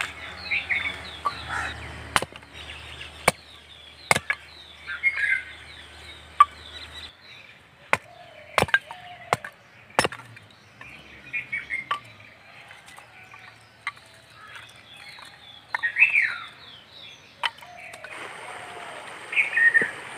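A hatchet splitting small sticks of kindling: a series of sharp chops, mostly a second or so apart, bunched in the first half. Birds chirp throughout.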